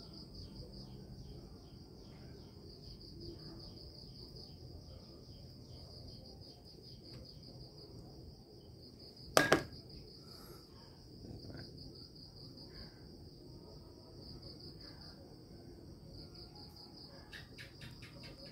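Crickets chirping steadily in a fast, even pulse, with one sharp click about nine and a half seconds in and a few fainter clicks near the end.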